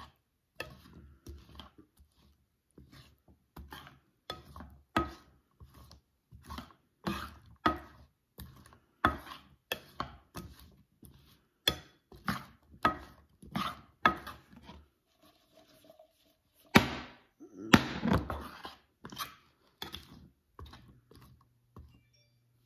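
A black spatula stirring and scraping diced green peppers and onions around a nonstick frying pan: a run of short scrapes and taps about once or twice a second, with two longer, louder scrapes past the middle.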